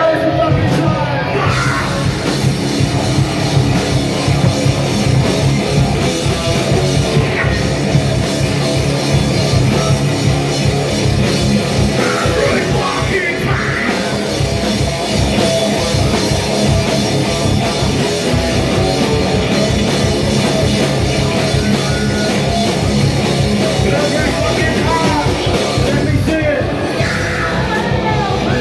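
Live heavy rock band playing loud: distorted electric guitars, bass guitar and drum kit, with a singer's voice through a handheld microphone coming in about twelve seconds in and again near the end.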